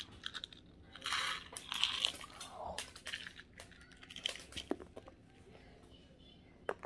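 Grape Nerds candies tipped from their small box into the mouth and crunched between the teeth: a dense stretch of crunching about a second in, thinning to scattered crunches.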